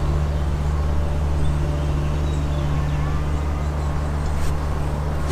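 A motor idling steadily: an even low hum that neither rises nor falls.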